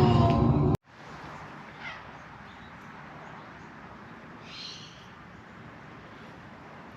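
Loud music cuts off abruptly under a second in, leaving quiet background ambience with two faint bird chirps.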